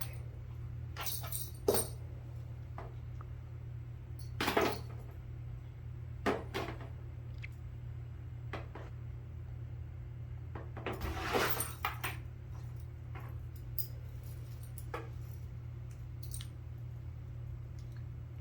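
Metal hardware on dog leashes jangling and clinking in several short bursts as a cat paws and tugs at them. The longest jingle comes about eleven seconds in. A steady low hum runs underneath.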